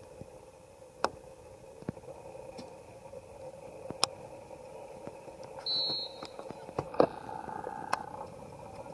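Faint steady background hum with a handful of sharp clicks scattered through it, and a brief high whistle about six seconds in.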